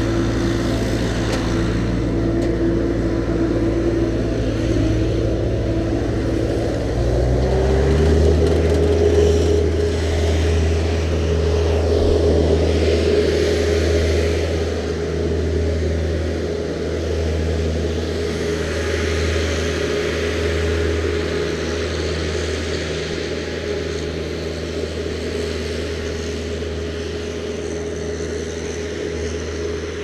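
Engine running steadily at a low idle, then its speed steps up about eight seconds in and holds at a higher steady pitch, easing off slightly near the end.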